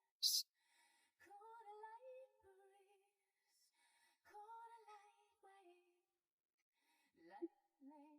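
Faint isolated female backing vocals, separated from the song's mix by an a cappella extractor: three soft sung phrases with held, slightly wavering notes and pauses between them. A short, sharp hiss about a quarter second in is the loudest sound.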